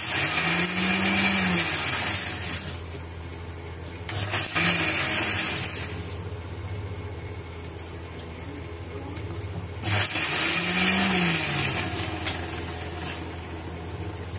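Electric mixer grinder grinding fresh coriander leaves in its steel jar, run in three short pulses of two to three seconds each. The motor's pitch rises as it spins up and falls as it slows at the end of each pulse.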